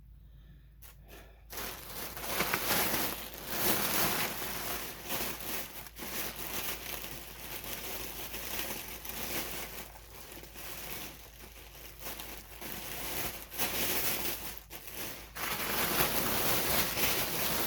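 Plastic packaging crinkling and rustling continuously as packs of yarn skeins are handled and pulled open, starting about a second and a half in after a few light clicks.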